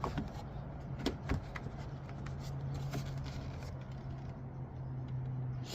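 Light clicks and knocks of the replacement side mirror being lined up and seated against the car door, over a steady low hum.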